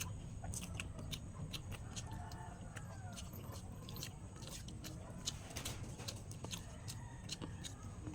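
Close-up chewing of banana peel: repeated wet mouth clicks and smacks. A chicken clucks a few times in the background.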